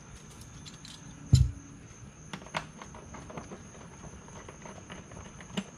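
Allen key working the bolts of a rear chassis tie bar as they are snugged: scattered light metallic clicks and taps, with one louder knock about a second and a half in.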